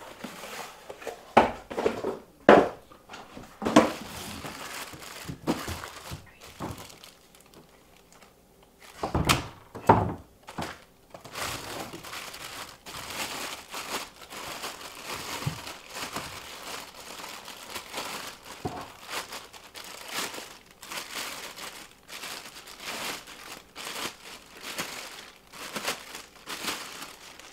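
Cardboard packaging handled out of a box, with several sharp thuds in the first few seconds and again about ten seconds in. After that comes the continuous crinkling of a clear plastic bag as a power file sander is unwrapped from it.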